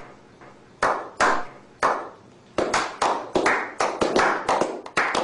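A small group of people clapping: a slow clap of single, spaced claps that speeds up into quick, overlapping applause from about two and a half seconds in.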